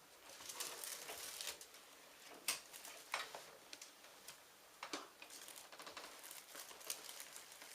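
Faint rustling and crinkling with a few sharp clicks, the loudest about two and a half seconds in.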